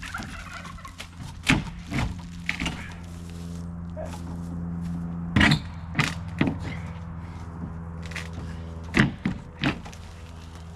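Irregular wooden knocks and thuds, about eight, the loudest about five and nine seconds in, as nailed boards of a rotted wooden shelter are struck and worked loose. Under them runs a steady low machine hum.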